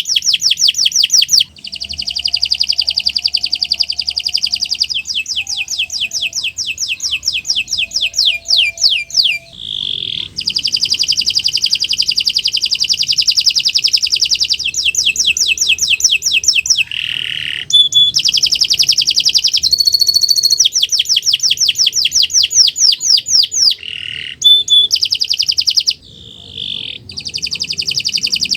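Domestic canary singing a long, loud song of rapid trills, each a fast run of repeated high notes, switching from one trill to the next with only short breaks, a few of them in the second half.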